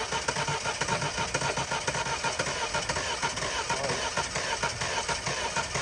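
Petrol car engine cranking on its starter motor after water has been cleared from its flooded cylinders, turning over steadily with a fast even pulse as it tries to fire.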